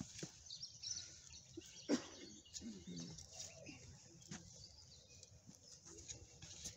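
Birds chirping faintly outdoors, with scattered soft knocks and scrapes, the loudest about two seconds in.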